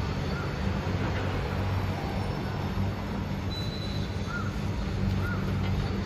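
Steady low rumble of city traffic and engines around a construction site, with short high chirps recurring about once a second.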